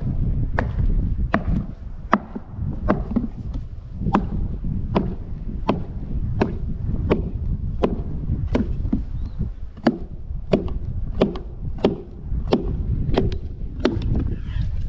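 Steady, even blows of a tool chopping into a wooden log, about one strike every 0.7 seconds, cutting out a square notch.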